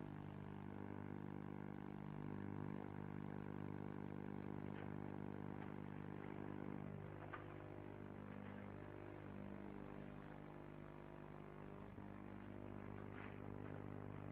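A steady, even mechanical hum, with a few faint clicks.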